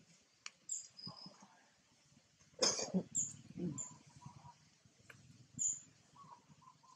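Scattered short, high-pitched animal chirps and squeaks over quiet outdoor background, with one brief louder sound about three seconds in.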